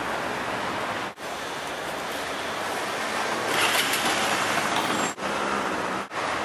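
Street traffic noise: a steady rush of passing cars. It drops out abruptly for an instant about a second in and twice near the end.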